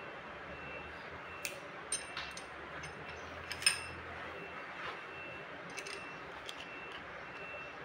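Hand tools clicking and clinking against the rocker arm adjusters of a Kubota V1505 diesel's valve train as the valve clearance is set with a wrench and feeler gauge. It is a handful of separate light metallic clicks, the loudest a little before halfway.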